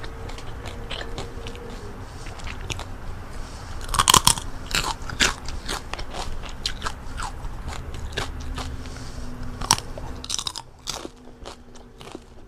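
Crispy fried chicken-skin chicharon being bitten and chewed, a rapid run of sharp crunches. The loudest bites come about four seconds in and again near ten seconds, and the crunching grows quieter near the end.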